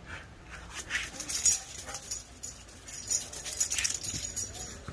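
Siberian husky whining in a rapid, irregular run of short, high-pitched bursts.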